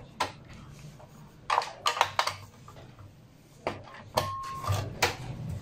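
Clicks and knocks of a screwdriver and parts against the sheet-steel chassis of a Dell desktop computer being dismantled, in a quick cluster about one and a half seconds in and singly after that, with a short ping about four seconds in.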